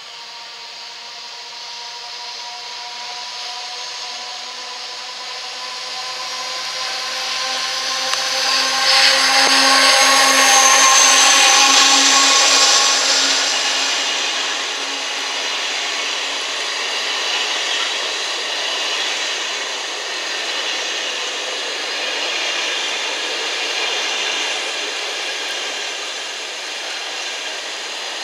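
Freightliner Class 70 diesel locomotive passing through at the head of a container freight train, its engine growing louder and loudest about ten seconds in as it goes by with a high whine. After it, the steady rolling noise of the loaded container wagons running past.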